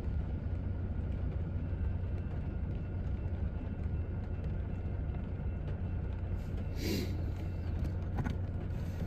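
Steady low rumble of an idling vehicle engine, heard from inside a parked car, with a brief hiss about seven seconds in.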